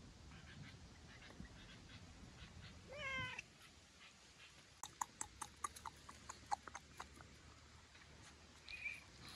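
A domestic animal gives one short, rising high-pitched cry about three seconds in. It is followed by a run of sharp clicks and a brief squeak near the end.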